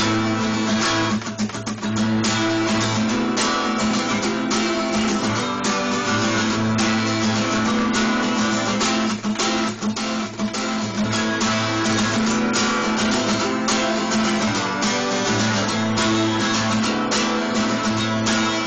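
Acoustic guitar strummed steadily in an instrumental break, with no singing, on a phone recording.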